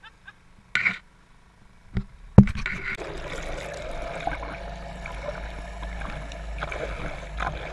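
Small outboard motor pushing an inflatable dinghy, a low hum at first; about two and a half seconds in the microphone plunges into the water with a sharp smack, and the rest is the motor heard underwater: a deep steady drone under a dense churning rush of propeller wash and bubbles.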